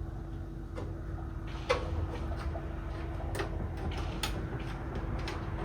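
A hand screwdriver working on the metal front-cover screws of a Teletype Model 33: a handful of scattered sharp clicks and scrapes over a steady low hum.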